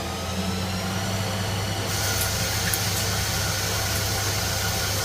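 CNC machine tool running with a steady low hum and several faint high tones that rise slowly at first. A higher hiss joins about two seconds in and carries on.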